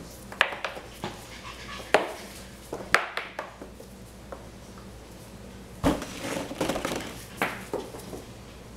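Cavalier King Charles Spaniel puppies scampering and playing on a tile floor: scattered sharp clicks and knocks, with a busier cluster about six to seven seconds in.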